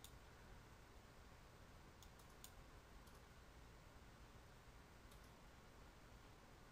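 Near silence: faint room hiss with a few scattered soft clicks.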